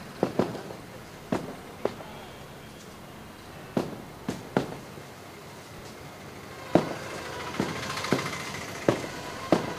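Hammer blows on a brick wall being demolished by hand: about a dozen sharp, irregular knocks of brick and masonry, the loudest a little before the last third.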